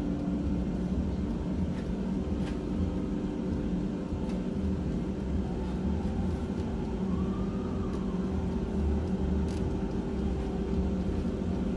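Air fryer running: the fan motor's steady whir and hum, with a few faint clicks.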